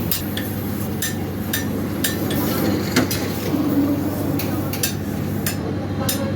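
Irregular sharp metallic taps and clicks of hand tools at work on a bicycle wheel, over a steady low background hum.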